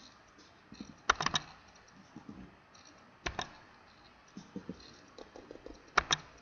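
Sharp clicks at a computer: a quick cluster of clicks about a second in, a single click a little after three seconds, and a double click near the end, with a few faint ticks between.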